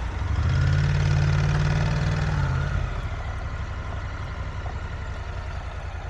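Honda NC750X's parallel-twin engine pulling away at low revs, louder for about two seconds, then dropping back to a steady low-speed run.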